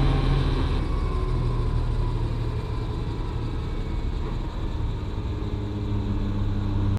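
Helicopter engine and rotor noise, a steady low hum with no music over it.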